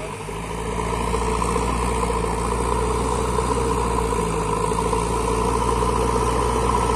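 JCB 3DX backhoe loader's diesel engine running steadily while its front loader bucket pushes soil.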